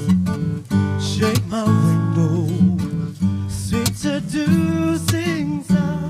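Live pop cover performed by voices and acoustic guitar: wordless sung harmonies held and gliding over strummed acoustic guitar, with sharp percussive hits recurring through it.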